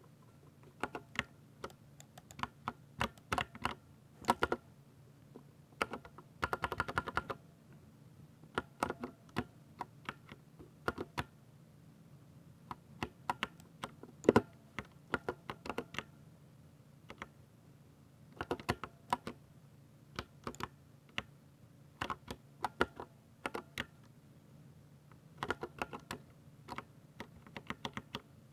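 Keys of a 60% mechanical keyboard with Ducky silver switches being typed on: irregular runs of keystrokes broken by short pauses, with a quick dense run about seven seconds in and one louder stroke about halfway through.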